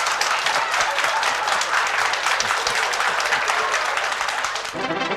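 Studio audience applauding: dense clapping from many hands, with music starting in just before the end.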